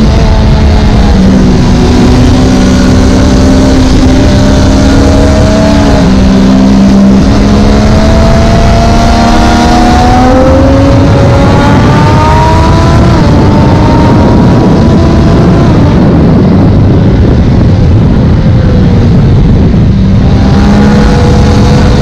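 Triumph Daytona 675R's inline three-cylinder engine under way on track, heard onboard under heavy wind noise. The engine note holds fairly steady for the first half, then climbs as the bike accelerates from about ten seconds in, stepping once at a shift before climbing again.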